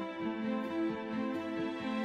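Soft, slow instrumental background music with sustained, gently changing notes.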